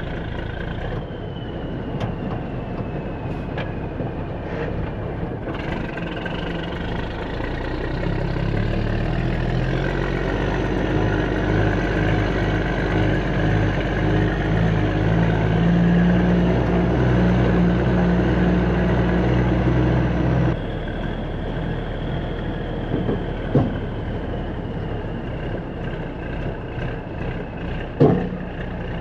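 Heavy diesel engine of earthmoving equipment running at idle, then revving up and holding higher revs under load for about twelve seconds before dropping back to idle, with a high whine rising and falling with the revs. A couple of short knocks near the end.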